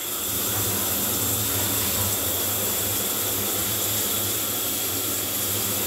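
Shower water running steadily, an even hiss of spray with a low hum underneath.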